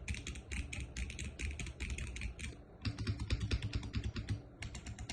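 Fast typing on a GMK67 custom mechanical keyboard fitted with Gateron KS-9 switches and pudding keycaps: a rapid run of key clacks, with two brief pauses, about two and a half seconds and four and a half seconds in.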